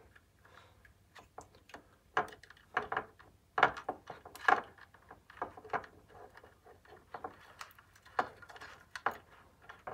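Hands untangling a thin bundled speaker cable and handling the small plastic speaker enclosure: irregular soft rustles and light clicks, with a couple of sharper clicks near the middle.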